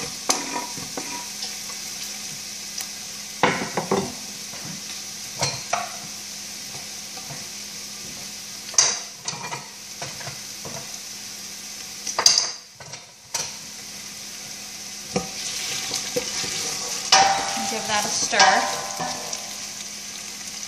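Diced onions sizzling in hot olive oil in a large stainless steel pot, a steady frying hiss as they sauté. Several short knocks and clatters sound over it.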